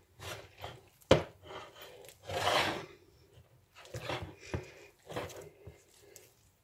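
Wet, sticky Brötchen dough being kneaded by hand in a glass bowl: irregular squishing and slapping strokes, with a sharp knock about a second in.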